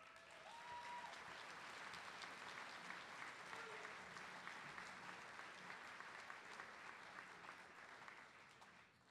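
Audience applauding, a dense patter of many hands clapping that swells in the first second and dies away near the end.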